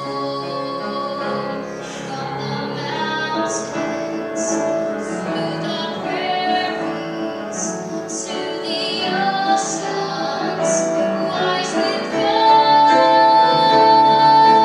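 A solo singer performing a song, with the words' hissing consonants audible, then from about twelve seconds in, a louder high note held to the end.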